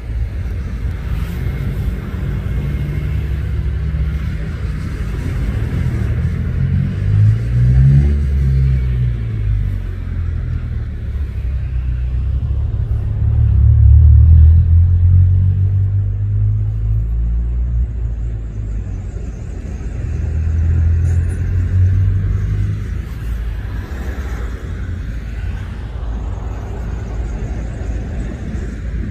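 Freight train rolling past with a steady low rumble. It swells in loudness about 7, 14 and 21 seconds in, and a low engine note rises and falls around 8 seconds in.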